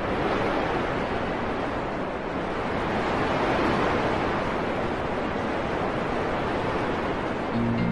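Steady, even rushing noise of a storm ambience. Music with low held notes comes in near the end.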